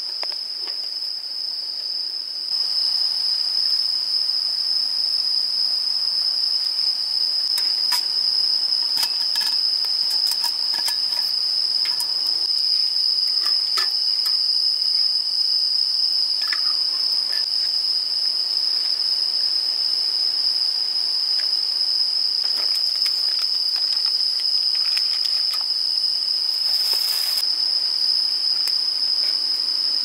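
Insects chirring in one steady, high, unbroken tone. Scattered light clicks and clinks from cookware being handled over a campfire can be heard, and a brief hiss comes near the end.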